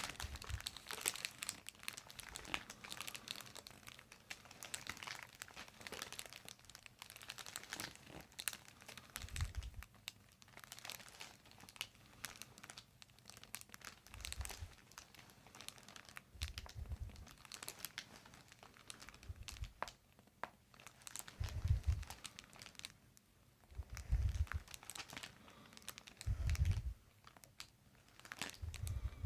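Faint rustling and crinkling of hands, clothing and table covering as a patient lying on a chiropractic treatment table is worked on by hand, with about seven low, dull thumps spread through the later two-thirds.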